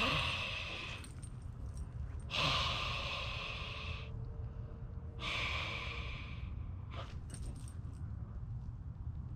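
Three heavy, breathy exhalations close to the microphone, each lasting about a second and a couple of seconds apart, over a steady low rumble, with a few faint clicks near the end.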